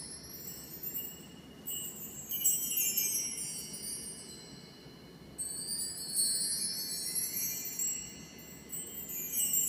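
Mark tree (bar chimes) swept with a stick several times, each run a shimmering glissando of high metallic tinkling that rings on and fades before the next sweep.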